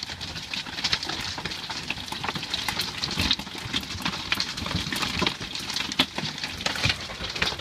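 Hail pelting an RV's aluminum roof, heard from inside: a dense, irregular clatter of many sharp hits.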